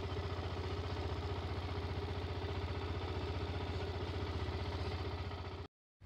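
An engine idling steadily, with an even, rapid pulse.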